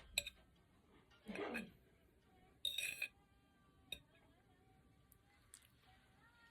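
A few light clinks and taps of an eating utensil against a bowl while eating noodles. The sharpest click comes just after the start, and a brief ringing clink comes about three seconds in. A short murmur of a voice falls in between.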